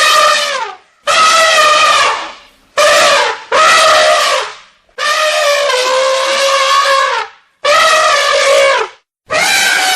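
Elephant trumpeting over and over: about seven loud, brassy calls in a row, each a second or two long and often dropping in pitch as it ends.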